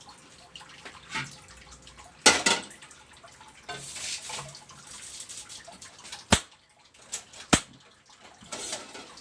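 Kitchen work with water: short bursts of splashing and a few sharp clinks and knocks, the loudest about two seconds in and three more between six and seven and a half seconds in.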